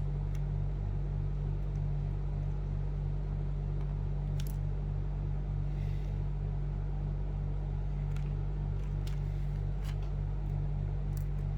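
Steady low machine hum with a regular faint pulsing, and a few faint, sparse clicks of small parts being handled.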